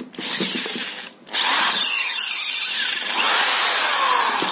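iBell 280-watt corded electric screwdriver-drill running in reverse, backing a wood screw out of a wooden plank. It runs briefly, dips about a second in, then runs louder and steadily.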